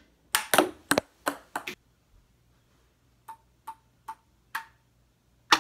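Ping pong ball hits and bounces: a quick cluster of sharp clacks in the first couple of seconds, then four light pings about half a second apart, and one more sharp clack near the end.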